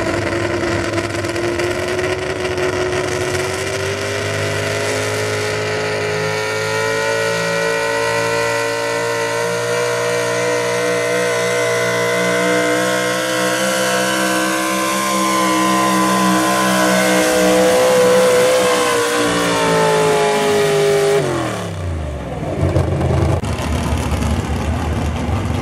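Pulling tractor's engine at full throttle under load while dragging the pulling sled, its pitch climbing slowly over the first several seconds and then holding high. About 21 seconds in the throttle comes off and the engine winds down quickly to a lower, uneven run, marking the end of the pull.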